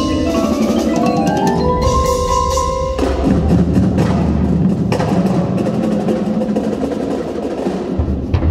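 Indoor percussion ensemble playing. Marimbas and vibraphones run upward in quick notes to a held high note, and about three seconds in the music changes to dense, rapid playing full of sharp strokes.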